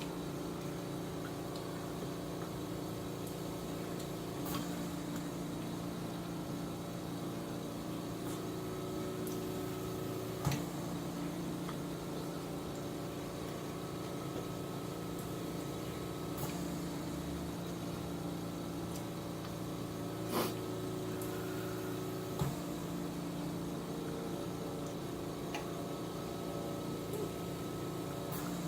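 Spoon clinking against a bowl about five times, a few seconds apart, over a steady low electrical hum.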